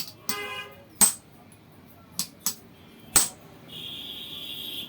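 Hammer blows on iron at a blacksmith's anvil: five sharp, irregular metallic strikes with a ringing tail, during the forging of a boti blade. Near the end a steady high-pitched hiss or rasp sets in.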